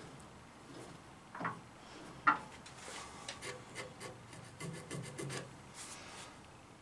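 A hand working a bandsaw's blade and blade guides: a soft knock, then a sharper click a little over two seconds in, followed by a run of light ticks and rubbing of metal parts.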